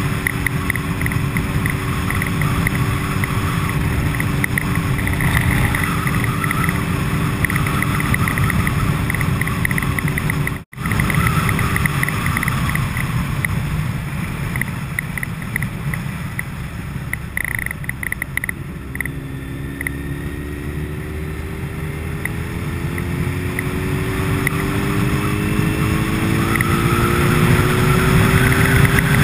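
A vehicle running, a steady low rumble with a pair of steady tones over it; the sound drops out for an instant just past ten seconds, and from about twenty seconds a whine climbs slowly in pitch.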